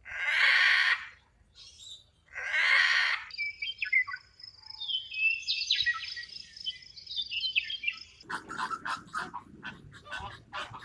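Two harsh animal calls, then birds chirping with high whistled notes that glide up and down. About eight seconds in, this gives way to a rapid run of short, sharp calls.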